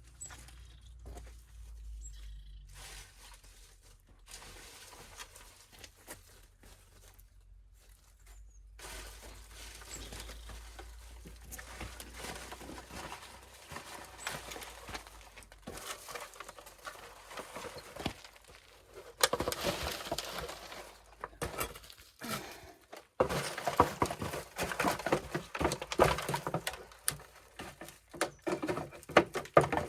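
Digging soil with a hand gardening tool: scraping and knocking strokes, sparse at first and coming thick and fast over the last third.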